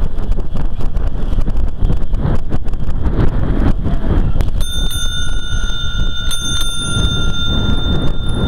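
Bicycle bell on a recumbent trike rung twice, a ding about halfway through and a second about a second and a half later, each ring hanging on. Underneath is a steady low rush of wind on the microphone while riding.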